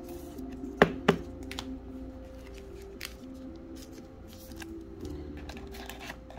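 Hands handling trading cards and pack packaging: two sharp taps about a second in, then light ticks and rustles, over quiet background music.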